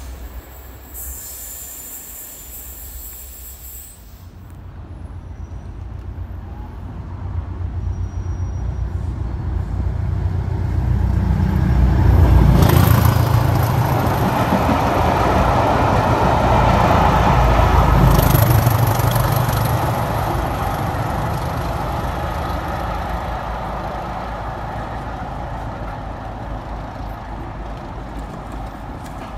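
A passenger train of green coaches passes by. Its deep rumble and wheel noise build up, are loudest for several seconds through the middle, then fade slowly as it runs away down the line.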